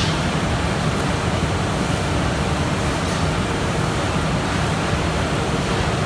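Mesh-belt veneer dryer running: its air-circulation fans and drives make a constant low hum under a steady rush of air.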